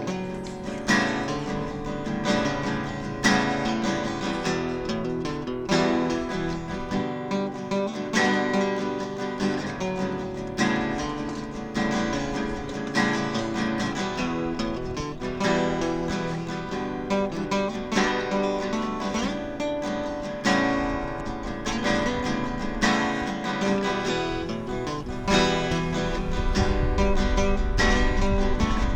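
Background music: strummed acoustic guitar with a regular rhythm, joined by a heavier low end in the last few seconds.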